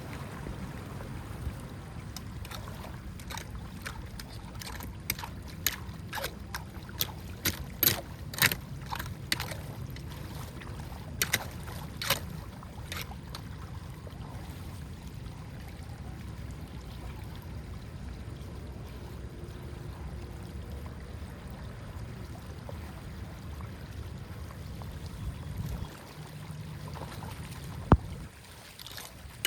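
Water rushing steadily through a drainage channel, with a run of sharp clicks and knocks from about two to thirteen seconds in and one sharp knock near the end.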